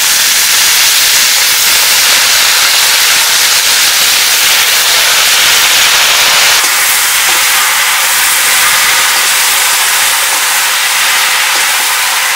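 Food sizzling loudly in hot oil in a cooking pan, a dense steady hiss that eases slightly about six and a half seconds in.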